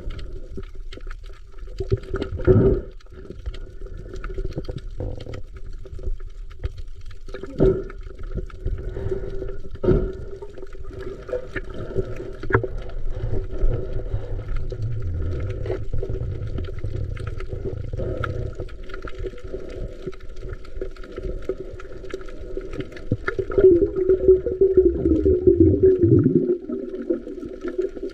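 Muffled water sloshing and bubbling, with scattered clicks and knocks and a louder churning stretch near the end.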